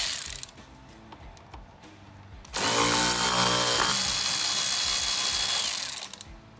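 A power ratchet spinning out bolts with an 8 mm socket. It runs in two bursts, a short one that stops about half a second in, then a longer run of about three seconds with a steady high whine over its hiss.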